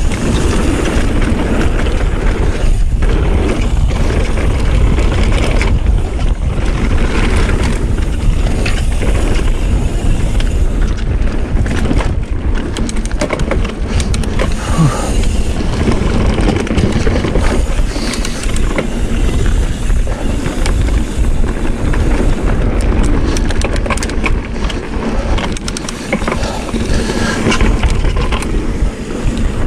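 Mountain bike descending a dirt flow trail at speed: knobby tyres rolling over packed dirt and berms with a steady rumble, the bike rattling and clicking over bumps, and wind buffeting the microphone.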